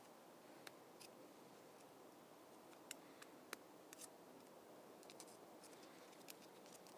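Near silence: faint room tone with a handful of small, sharp clicks at irregular intervals.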